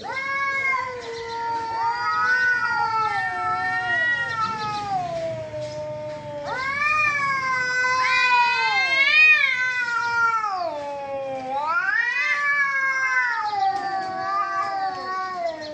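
Domestic cats yowling at each other in a face-off: long, wavering caterwauls that slide up and down in pitch with hardly a break. They swell louder about six and a half seconds in and again near twelve seconds. This is the threatening yowl of a territorial standoff.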